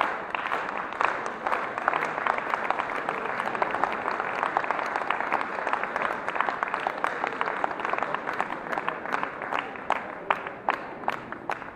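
Audience applauding, the dense clapping thinning to scattered single claps near the end.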